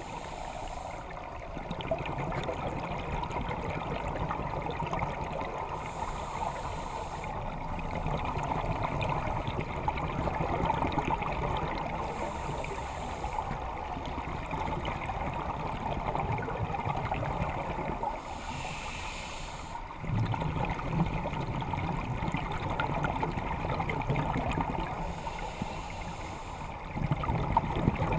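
Scuba diver breathing through a regulator underwater. There is a short high hiss on each breath in, about every six seconds, and a bubbling gurgle of exhaled air between breaths.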